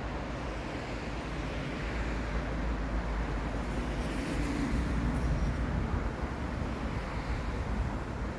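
Road traffic noise, with a vehicle swelling past about four to five seconds in.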